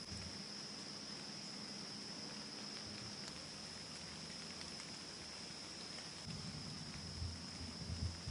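Steady, high-pitched chorus of insects such as crickets, one unbroken shrill tone. Low, uneven thumps and rumble come in during the last two seconds.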